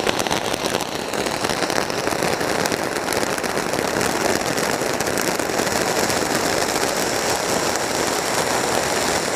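Ajanta peacock ground-fountain firework burning: a steady spraying hiss from its nozzles, with dense crackling from the small stars it throws out.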